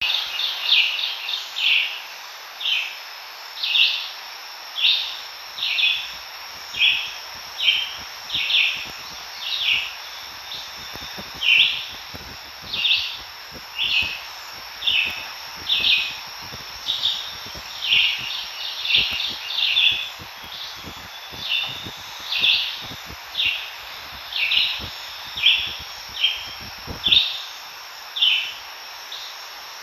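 A bird calling over and over, one short chirp about every second, above a steady high drone of insects. Soft low thuds of footsteps run from about four seconds in until near the end.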